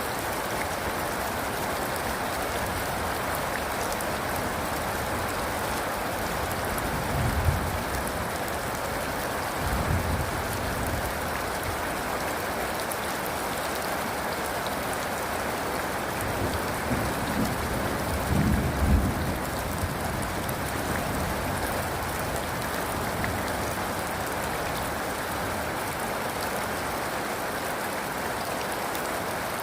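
Steady rain falling, an even hiss throughout, with low thunder rumbling in three swells; the strongest rumble comes a little past the middle.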